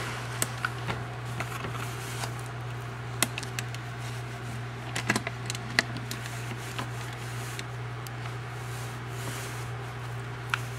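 Steady low hum with scattered small clicks and taps of handling noise from the hand-held camera and the cardboard coin folder, a few of them sharper about three and five to six seconds in.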